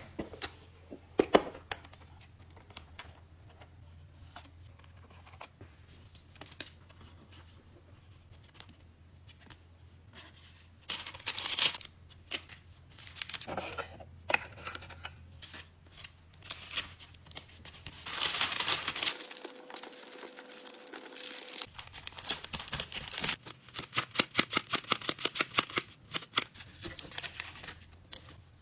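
Photocard packing sounds: plastic sleeves and paper packaging being handled and crinkled, with light clicks and taps, a longer tearing sound partway through, and a run of quick clicks near the end, over a low steady hum.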